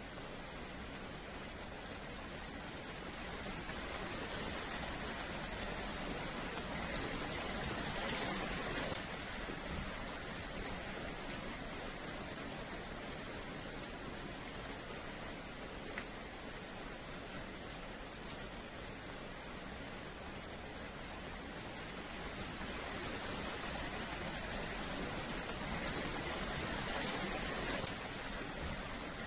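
Steady rain falling on a wet paved yard, a continuous hiss that twice grows heavier for a few seconds.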